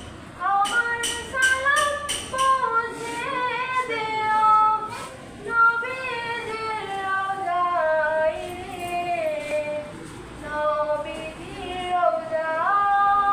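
A teenage schoolgirl's solo voice singing a naat, an Islamic devotional song in praise of the Prophet, holding long notes that glide and bend in an ornamented melody.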